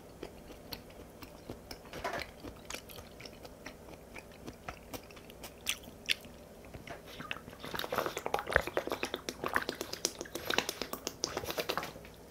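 Close-miked chewing with scattered soft mouth clicks, then, from about eight seconds in, a dense run of gulps and crackles as water is drunk from a plastic bottle.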